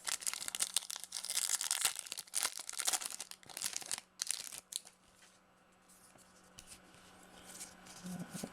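A trading card pack's wrapper being torn open and crinkled, a crackly rustle lasting about four and a half seconds, then only faint handling ticks.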